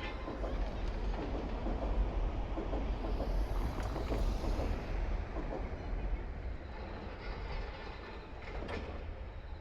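A Meitetsu Seto Line electric train passing, its wheels running on the rails. It is loudest two to four seconds in and fades gradually toward the end.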